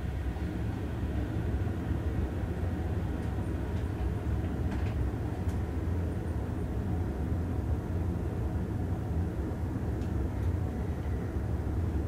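Otis high-speed elevator car climbing steadily at full travel speed, about 5 metres a second: a steady low rumble inside the cab, with a few faint ticks.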